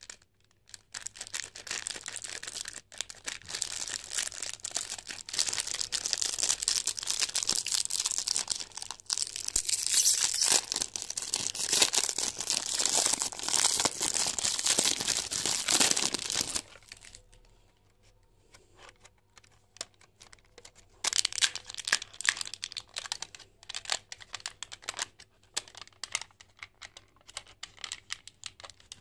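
Plastic snack wrapper of a Kiri Dippi pack crinkling and tearing as it is opened by hand, densely for about the first sixteen seconds. After a brief lull, scattered sharper crinkles and crackles as the plastic tray and its foil lid are handled.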